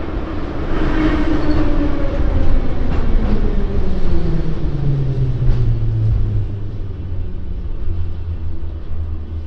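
Metro train pulling into the station and braking: the whine of its electric traction motors falls steadily in pitch over a heavy rumble. It settles into a low steady hum over the last few seconds.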